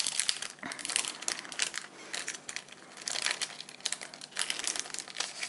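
Small pink packaging bag crinkling as it is pulled open and unfolded by hand: irregular rustling, with louder crinkles about three seconds in and again near four and a half.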